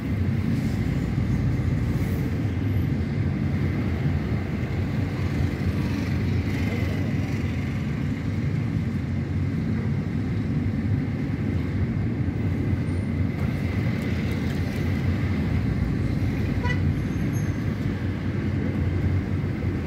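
Steady low rumble of a car's engine and tyres on the road, heard from inside the cabin while driving through city traffic.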